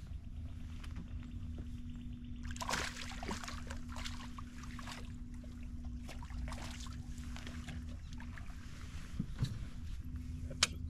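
Steady hum of a boat's trolling motor, with scattered clicks and knocks as fishing gear and a rod with a fish on are handled.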